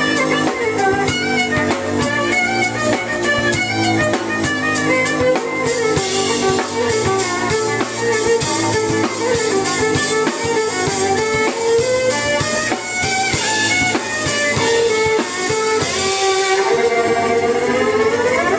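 Live band music: a violin playing a bending, sitar-like melody over a drum kit and keyboard. Near the end the pitch sweeps upward.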